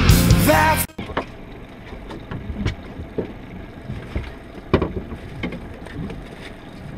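A rock song cuts off abruptly about a second in. After it comes the open-air sound aboard a center-console fishing boat: a steady low wash of wind and water, with scattered light knocks and clicks of gear on the deck.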